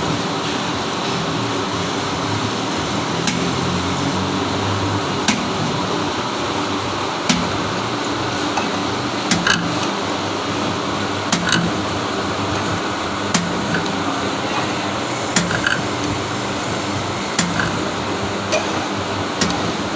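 Metalworking machine running steadily with a sharp metallic click or knock about every two seconds, as if at each stroke of the machine.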